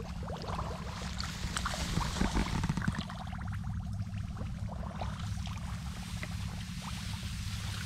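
Bare feet wading and splashing through shallow muddy paddy water, busiest in the first three seconds and lighter after that, over a steady low rumble.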